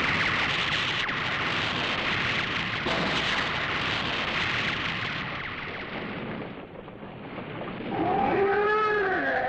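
Rocket launcher firing: a loud rushing blast of rocket exhaust that surges again about three seconds in and dies away. Near the end a kaiju roar rises and falls in pitch.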